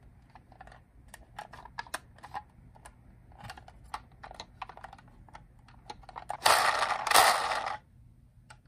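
Toy vehicles being handled: a run of light clicks and taps. About six and a half seconds in comes a louder noisy burst lasting just over a second.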